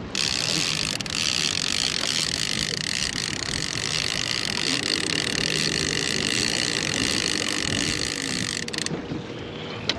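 Fishing reel being cranked steadily while a hooked walleye is brought in, a continuous high whirring that stops abruptly about nine seconds in.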